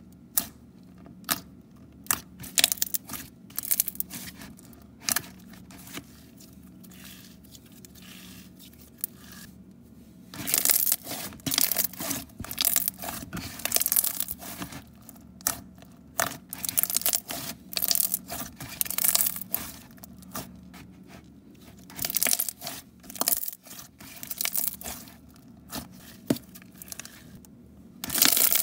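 Pink slime being pressed, folded and squished by hand. At first it gives scattered sharp sticky pops and clicks, then from about a third of the way in, runs of dense crackling.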